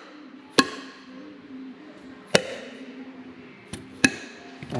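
Hammer tapping the valve stem tips of a freshly assembled John Deere 6090 9.0L cylinder head, seating the valve keepers with a sharp pop at each blow. There are four separate strikes, three strong and one lighter.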